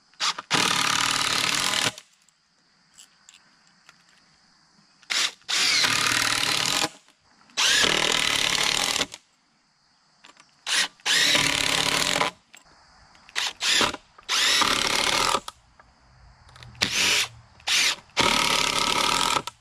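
DeWalt cordless drill driving long screws into the timber pieces of the angle braces. It runs in spurts of one to two seconds, about seven of them, with short blips of the trigger in between.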